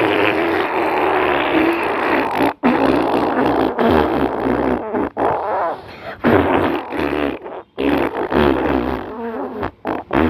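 Farting sound effect played back: a run of long, loud farting noises broken by several short pauses.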